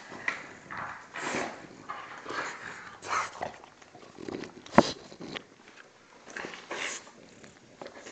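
French bulldog biting and tearing at a cardboard box: the cardboard crinkles and rasps in irregular bursts. There is one sharp knock just past halfway.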